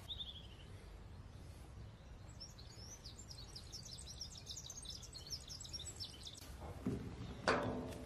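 A songbird singing a quick run of high chirps over a steady low outdoor rumble. Near the end come two short knocks and rustles, the louder second one from plastic hose fittings being handled.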